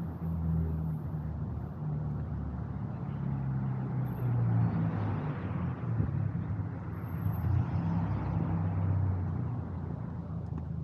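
Road traffic: motor vehicle engines with a low hum, and tyre and engine noise that swells and fades as a vehicle passes near the middle.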